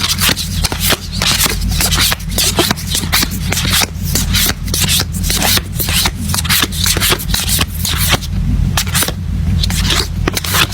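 A stack of K-pop photocards being shuffled and flipped through by hand: quick, irregular rustling and scraping of card against card, over a steady low hum.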